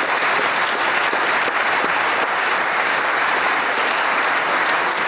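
A large audience applauding, a dense, steady clapping that holds at one level throughout.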